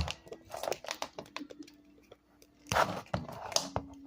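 Handling noise from a power-tool teardown: sharp clicks and rustling, scraping bursts of hard parts being moved and worked, loudest about three seconds in, over a faint steady hum.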